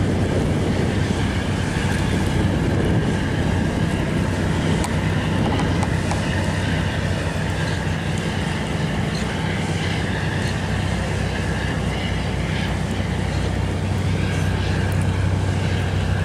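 A boat engine droning steadily at a low pitch, with wind buffeting the microphone and water washing.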